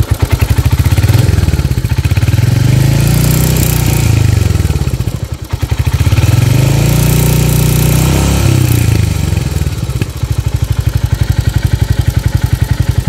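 Royal Enfield Hunter 350's single-cylinder engine revved twice with the bike standing, each rev rising and then falling back over a few seconds, then settling to an even-beat idle.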